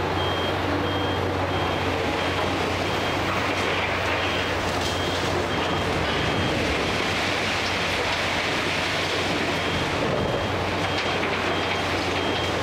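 Heavy excavator's diesel engine running steadily under load, with a high-pitched beeping warning alarm that repeats in stretches, and scattered clatter of demolition debris.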